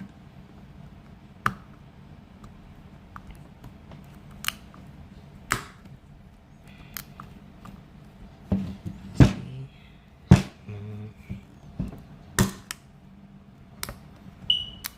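Scattered sharp clicks and knocks of hard plastic steering-wheel parts being pushed and handled as the horn button is pressed into a tight fit, with a few louder knocks in the second half.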